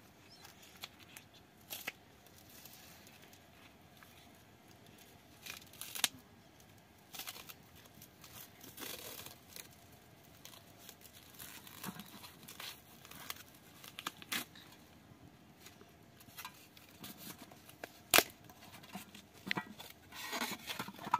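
Plastic wrap being torn off and crinkled from a plastic tray of packaged meat, in short irregular rips and rustles with a few sharp clicks.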